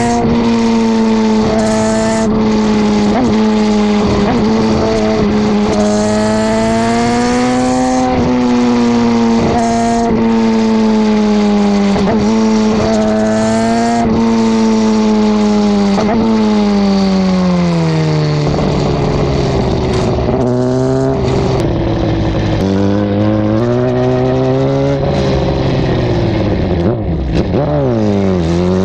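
2009 Suzuki GSX-R1000's inline-four through a Two Brothers M2 carbon slip-on exhaust, heard right at the muffler with wind rush on the microphone. It holds a steady high note while cruising, the revs fall away a little past halfway as the bike slows and it runs at low revs, then near the end the revs dip and climb sharply as it accelerates.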